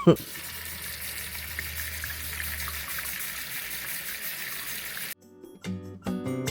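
A steady rushing hiss, like running water, that cuts off abruptly about five seconds in; acoustic guitar music starts shortly after.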